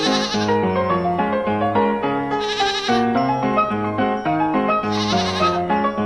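Cheerful background music with a steady note-by-note melody, over which a goat bleat sound effect repeats about every two and a half seconds, three times.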